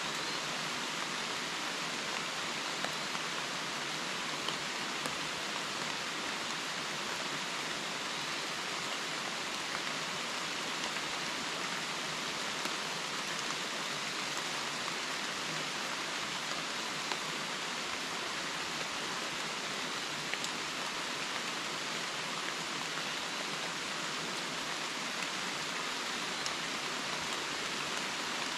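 Steady rain falling on leaves and a wet wooden boardwalk in the woods: an even hiss, with now and then a single louder drop standing out.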